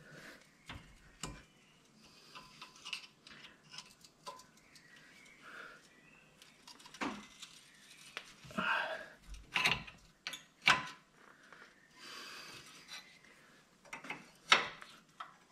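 Scattered metallic clinks and knocks of hand tools, wrenches and the like, worked on a car's steering tie rod end, with a short scraping rasp midway and the sharpest knock near the end.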